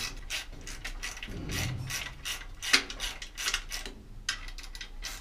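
Hand ratchet clicking in quick repeated strokes, a few a second, as a fixing is driven into a wall plug. One sharper click comes a little under three seconds in.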